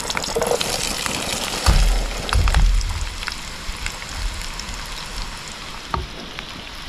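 Diced potatoes sizzling and crackling in hot oil in a pan on a gas camping stove as they are tipped in and stirred, with low bumps about two seconds in.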